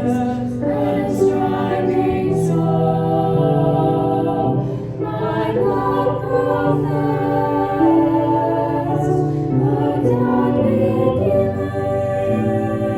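Choir singing a slow hymn, several voices holding long notes together and moving to a new chord every second or so.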